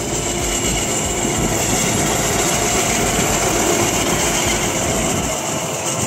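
Motorised rail inspection trolley running along the track and passing close by, its engine and run on the rails growing loudest about four seconds in.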